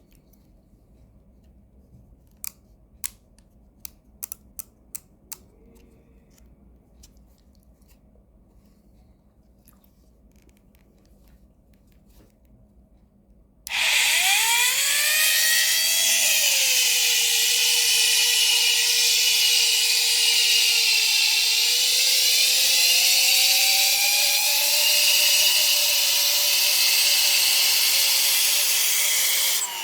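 A few light clicks of handling, then a corded rotary tool is switched on about halfway through and runs at speed with a steady high whine, its pitch dipping as it starts, then settling and rising a little, before it is switched off near the end.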